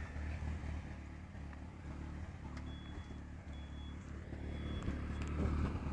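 Nissan 200SX engine idling steadily: a low, even hum.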